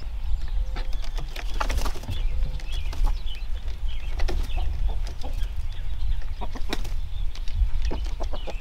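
Chickens clucking and calling softly as hens come out of the coop and down its wooden ramp, with scattered sharp knocks and wing flaps. A steady low rumble of wind on the microphone runs underneath.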